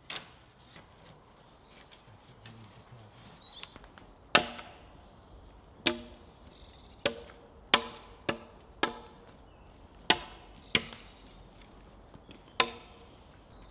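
Axe chopping into a log lying on the ground: about nine sharp strikes at irregular intervals, each with a brief ring, starting about four seconds in.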